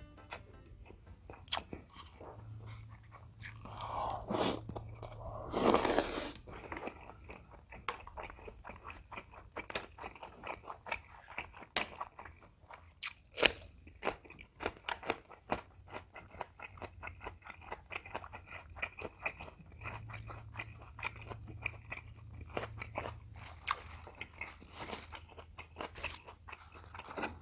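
A person chewing and crunching a mouthful of stir-fried kimchi and pork belly close to the microphone, with many small wet mouth clicks. The loudest crunches come about four to six seconds in.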